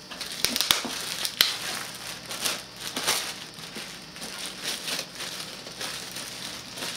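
Clear plastic wrapping crinkling and rustling as it is pulled off a newly unboxed electronics unit, with a few sharp crackles in the first second and a half.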